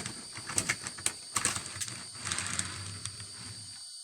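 HO scale model train running on the track, its wheels giving irregular clicks over the rails and joints, with a low motor hum that sets in about halfway through.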